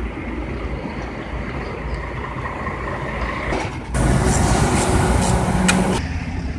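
Steady low rumble of vehicle noise, which grows louder and fuller for about two seconds starting some four seconds in, then drops back.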